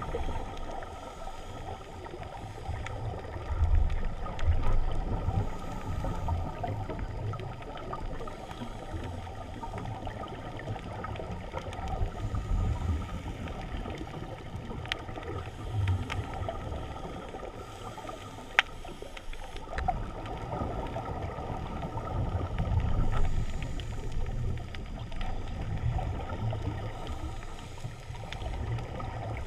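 Underwater ambience heard through a camera's waterproof housing: muffled low rumbling water noise that swells and fades irregularly as the diver swims. A single sharp click comes a little past halfway.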